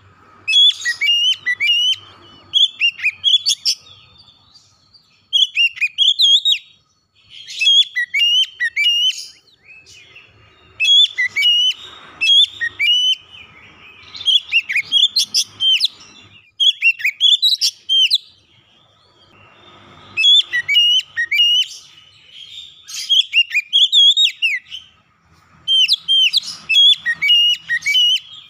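Oriental magpie-robin (kacer) singing loudly: a varied song of quick whistled phrases with sliding notes, delivered in bursts with short pauses between them and one longer pause a little past halfway.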